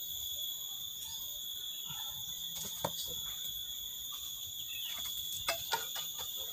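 Steady high-pitched insect drone, with a few sharp knocks of stone and a mason's trowel as rocks are set into a mortared rubble stone foundation wall: one about three seconds in and two close together near the end.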